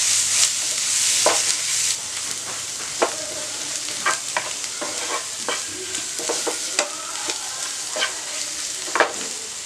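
Sliced onions, green chillies and spice powders sizzling in a nonstick frying pan while a wooden spatula stirs them, with irregular scrapes and taps of the spatula against the pan. The sizzle eases after about two seconds, and the sharpest taps come about three and nine seconds in.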